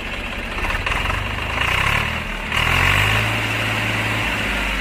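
1999 Swaraj 855 tractor's three-cylinder diesel engine being revved. It climbs about a second in and eases briefly just after two seconds. It is then revved harder and held until a little past four seconds, before dropping back toward idle.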